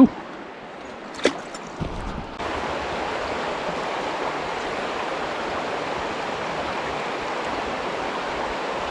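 River water rushing steadily over a riffle, an even hiss with no rhythm, which jumps louder about two and a half seconds in. A short sharp knock at the very start and a faint tick about a second later.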